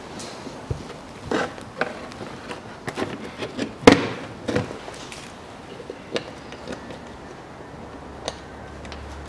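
Plastic wheel-arch liner being pushed and knocked into place by hand: a run of sharp plastic knocks and clicks, the loudest about four seconds in, thinning out after about five seconds.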